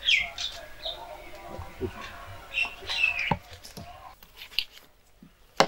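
Birds chirping and squawking over faint men's voices, with a few sharp knocks, the loudest near the end.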